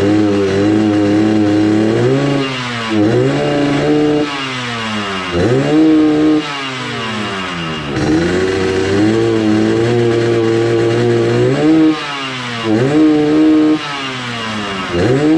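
Yamaha RX-King single-cylinder two-stroke motorcycle engine being revved hard. It holds high revs, and about nine times the revs drop and climb back sharply as the throttle is blipped.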